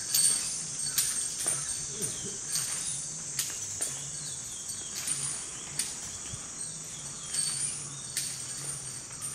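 Iron leg chains on a walking Asian elephant clinking and clanking with its steps, a sharp clink about every half second to second.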